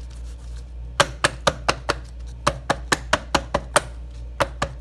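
Two batter-filled loaf pans being tapped down on a countertop to level the cake batter: runs of sharp knocks, about four or five a second, in three groups with short pauses between.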